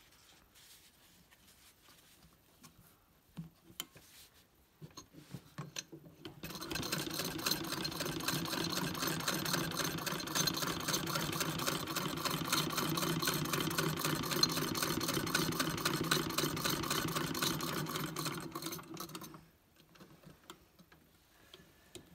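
Electa Bismarck sewing machine stitching through four layers of denim: an even, fast run of needle strokes that lasts about thirteen seconds, then stops. A few soft clicks of handling the fabric come before it.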